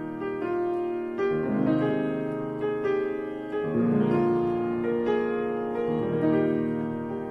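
Grand piano played with both hands: a measured run of chords, each struck and left to ring as the next comes in.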